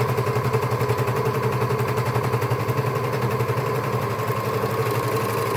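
Janome overlocker running at a steady speed, stitching a seam on stretch fabric: a fast, even rattle over a steady motor hum. The differential feed is set to about 1.5, so the fabric feeds through easily.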